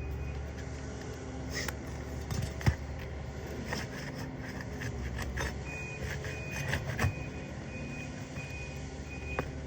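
A vehicle's reversing alarm beeping at a steady rate over a steady low engine hum, the beeping in the last few seconds. A few sharp knocks of a tool working the shingles and nails, the loudest a bit under three seconds in.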